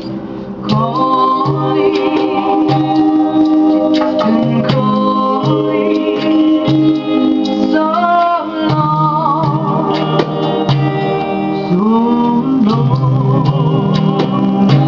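A woman singing a melody into a microphone, holding notes with vibrato, over a strummed hollow-body electric guitar in a live acoustic set.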